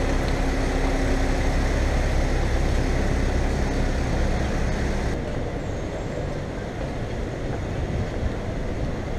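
City street traffic noise: a steady rumble of vehicle engines running and passing close by, with a faint engine hum in the first half. It turns a little duller and quieter about halfway through.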